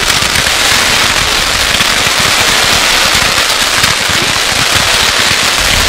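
Fireworks display in full barrage: a loud, dense, unbroken crackle of countless rapid small pops from several effects firing at once.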